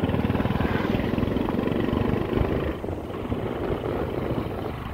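Motorcycle engine running under way, heard from the bike itself, easing off slightly about three seconds in.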